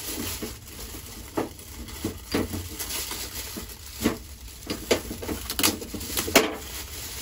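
Plastic wrapping rustling and crinkling as it is peeled off a new stainless steel gas cooktop, with a scattering of short, sharp clicks and taps from handling the stove and its knobs.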